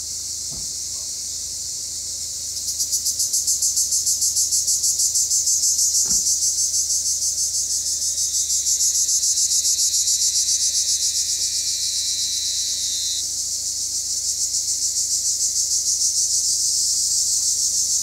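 Black cicadas singing: a steady, high-pitched buzz that grows louder about two and a half seconds in and turns into a fast, even pulsing rattle that carries on without a break.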